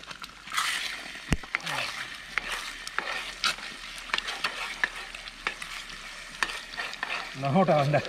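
Scrambled eggs sizzling in a frying pan on a portable gas camp stove while a metal ladle stirs and scrapes them, with repeated clicks of the ladle against the pan. A man's voice starts near the end.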